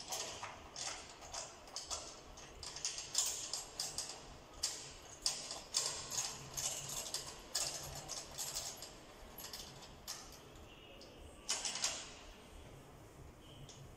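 Quick, irregular clicks and light taps from a PDP drum's tension rods and head as the rods are tightened by hand during tuning, with one louder knock about three-quarters of the way through.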